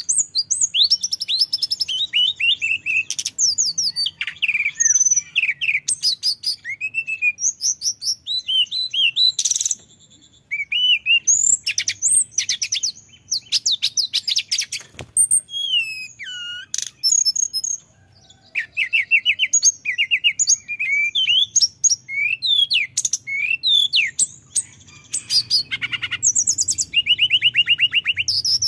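Male hill blue flycatcher (tledekan gunung) singing vigorously in long continuous runs: fast strings of high whistled notes, rapid trills and sliding phrases, with brief pauses about ten and eighteen seconds in.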